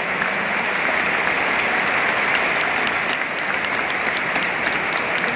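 A large stadium crowd applauding steadily, a dense wash of clapping with many sharp single claps standing out.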